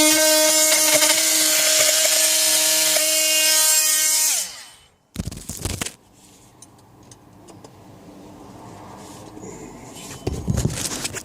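Handheld power cutting tool running at a steady high whine with a rasping edge, then winding down in pitch and stopping about four seconds in. Short clattering knocks follow, then quieter scraping and a louder rattle near the end.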